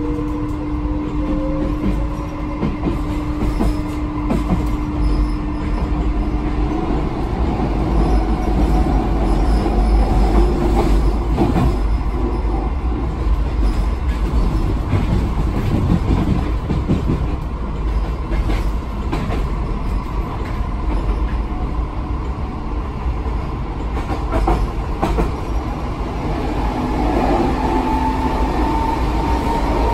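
Inside an MF77 metro car pulling away and running: a heavy steady rumble of wheels on rail, with the traction motors' whine rising in pitch as the train gathers speed in the first seconds and again near the end. Scattered short clicks come from the track.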